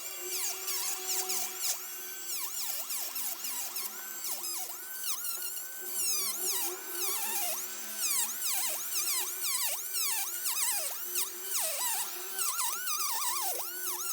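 High-speed rotary tool whining. Its pitch dips and recovers again and again as it is pressed against the work and eased off.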